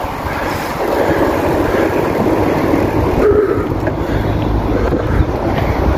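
Steady wind rush and rumble on the microphone of a bicycle riding along an asphalt road, with tyre noise mixed in.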